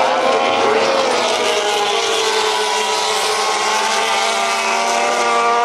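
Racing motorcycle engine running at high revs through a corner. Its note sags slightly, then climbs again near the end as the bike accelerates.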